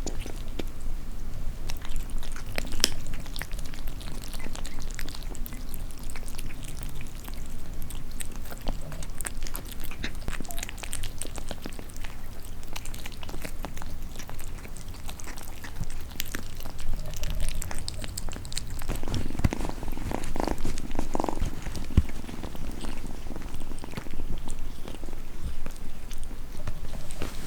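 Domestic cat purring steadily close up, with scattered light clicks and a few short louder sounds about twenty seconds in.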